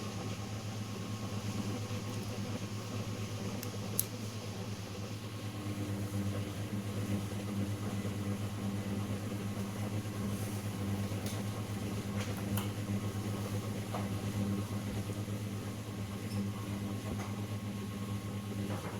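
Steady machine hum at an even level, with a few faint clicks from small tools handled on the workbench.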